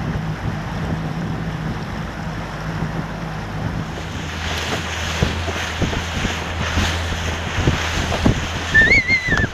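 Wind buffeting the microphone over open water, with a boat's motor humming steadily underneath; the hum drops to a lower pitch about four seconds in. A brief high, wavering call sounds near the end.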